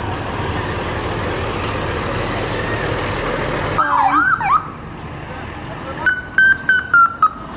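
Fire truck passing close, with a steady engine rumble and road noise. About four seconds in, a brief siren whoop sweeps up and down; near the end, the siren sounds in a quick run of short blips that step slowly down in pitch.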